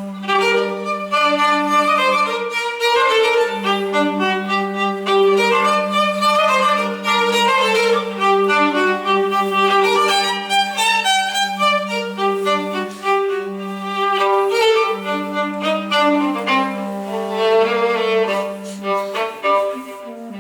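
Live instrumental music: a bowed string instrument plays a moving melody over a low note held almost throughout.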